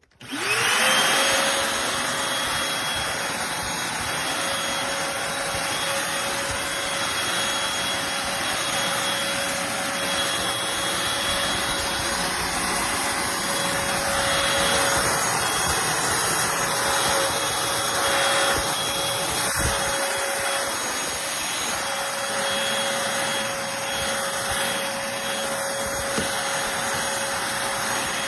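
Eureka NES215A Blaze stick vacuum switched on, its motor spinning up with a rising whine in the first half second, then running steadily with a high whine over a rush of air.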